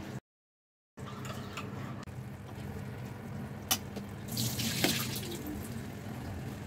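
Beef gravy simmering under a layer of rice in a pan, a steady watery bubbling hiss, which cuts out for under a second near the start. Around the middle a slotted steel spoon scrapes and presses the rice, with one sharp click just before it.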